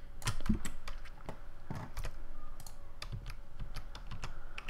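Computer keyboard keys clicking in an irregular string of keystrokes, as shortcut keys are pressed one after another.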